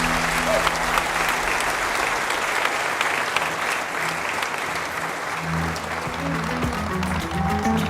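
Audience applauding with music playing underneath; about two thirds of the way through, the applause thins and the music comes forward.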